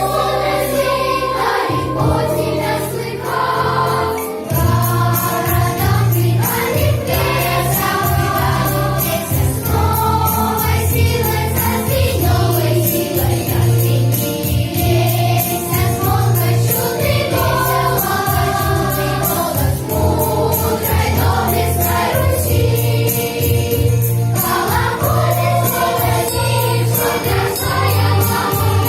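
A choir singing a song over instrumental accompaniment.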